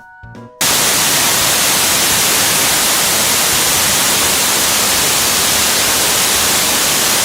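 Loud, steady hiss like white noise or static. It cuts in abruptly about half a second in, replacing background music, and cuts off just as abruptly near the end.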